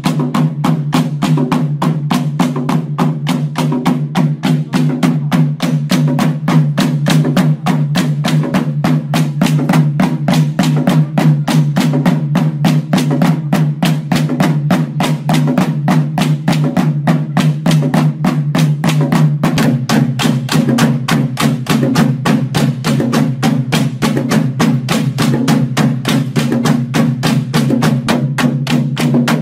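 Bamboo poles clapped together and knocked on bamboo cross-pieces in a fast, even rhythm of about four strikes a second, beating time for a Karbi bamboo dance, over a steady low hum that drops slightly in pitch about two-thirds of the way through.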